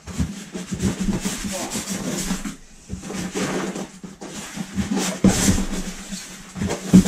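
White polystyrene packing rubbing and scraping against a cardboard box as it is worked loose and pulled out. There is a sharp knock near the end.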